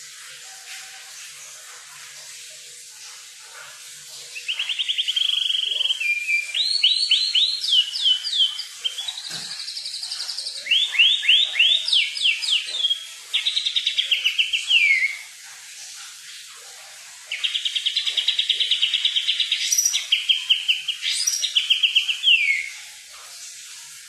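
A songbird singing in bursts of rapid, buzzy trills and quick down-sweeping whistled notes, with pauses between the phrases; the longest run of song comes in the second half.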